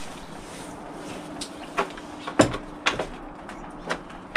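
Hollow plastic knocks and clacks of a vinyl handrail being set down over vinyl balusters and a post: about half a dozen sharp knocks, the loudest about two and a half seconds in.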